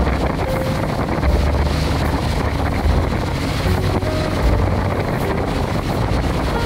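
Wind buffeting the microphone in uneven low gusts over the rush of water along the hull of a small powerboat under way. The boat's Mercury 135 Optimax two-stroke outboard is running underneath.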